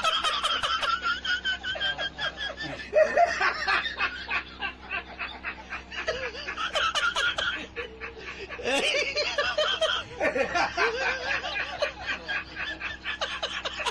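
High-pitched human laughter in repeated fits of quick snickering pulses.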